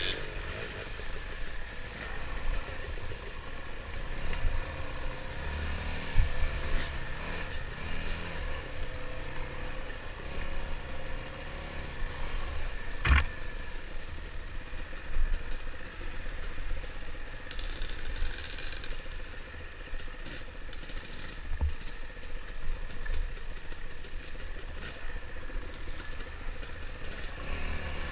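Dirt bike engine running while riding a trail, its pitch rising and falling with the throttle, under wind noise on the helmet-mounted microphone. A sharp knock sounds about thirteen seconds in.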